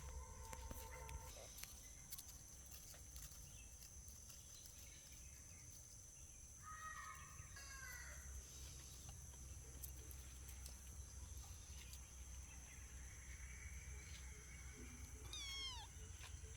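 Cats meowing faintly outdoors, twice: one call about seven seconds in and a falling-pitch meow near the end, over a steady faint high-pitched tone.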